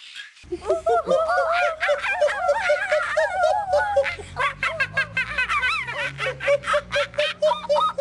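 Several young children laughing and giggling together in quick, high-pitched bursts after a brief moment of quiet at the start.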